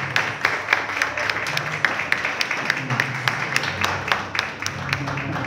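Audience applauding, with many sharp individual hand claps; the clapping thins out near the end.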